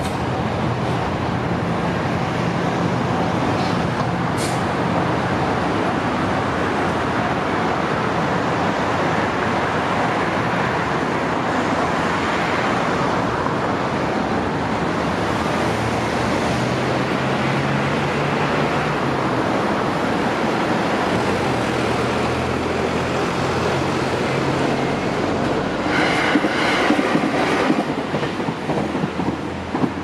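A train passing over a level crossing: a steady rumble and clatter of wheels on the rails, with a louder, rhythmic stretch near the end.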